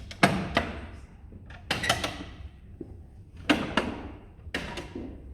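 Interior compartments of a David Roentgen mechanical cylinder desk snapping open by their mechanism: four double clacks of wood and metal, each with a brief ring.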